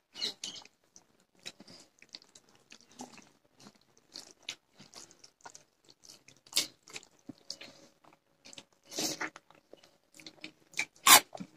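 Close mouth sounds of two people eating rice and curry: wet chewing, smacking and small crunches in irregular clicks, with a few louder smacks later on.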